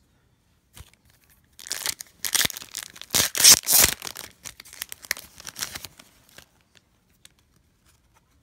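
A Pokemon booster pack's foil wrapper being torn open and crinkled. The rustling starts about a second and a half in, is loudest in the middle, and dies away after about six seconds.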